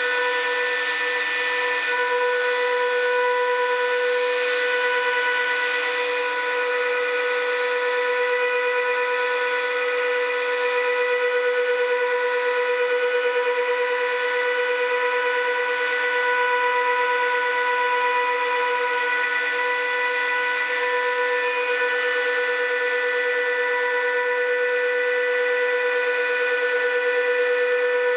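Festool electric sander running steadily on 120-grit paper, sanding solid ash: a constant high whine with overtones, holding one pitch throughout.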